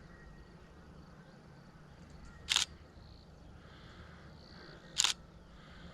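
Two camera shutter clicks, about two and a half seconds apart, taking photos of the sunset.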